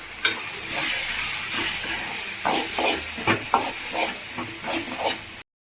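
Onion-tomato masala with chilli powder sizzling in oil in a kadai while a spoon stirs and scrapes it, with a quick run of scraping strokes a little past the middle. The sound cuts off suddenly near the end.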